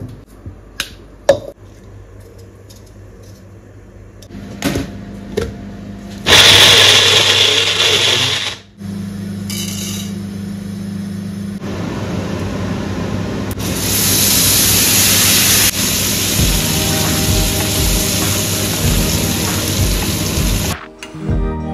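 A few utensil clicks, then from about six seconds a kitchen mixer-grinder runs loudly with a steady motor hum, grinding roasted tomatoes into chutney. Later a long steady hiss carries on and cuts off sharply near the end, which fits tempering sizzling in hot oil.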